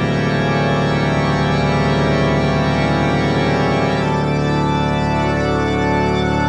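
Outro music: a sustained organ chord held steadily, with a higher note entering about four seconds in.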